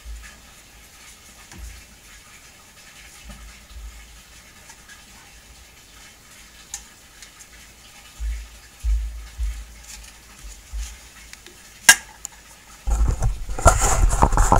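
A quiet stretch with scattered low thumps, then a single sharp click about twelve seconds in. Loud rubbing and knocking of handling noise follows as the camera is picked up and carried.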